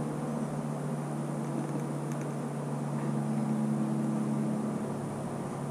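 A steady low mechanical hum with a hiss behind it.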